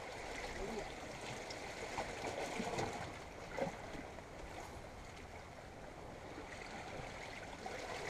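Small waves washing against shore rocks: a steady wash of sea water. A few faint clicks sound about two to four seconds in.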